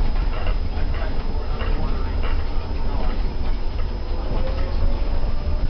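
Interior ride noise of a Breda articulated trolleybus under way: a steady low rumble with rattling from the body and fittings. A faint whine rises slowly about four seconds in.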